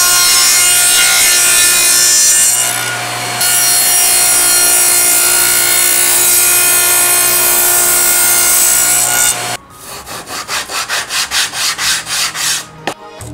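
A table saw runs and cuts through a thin plywood strip, a loud steady cutting noise over the motor's hum, easing briefly about three seconds in and stopping after about nine and a half seconds. Then a sanding block rubs back and forth along a plywood edge, about three strokes a second.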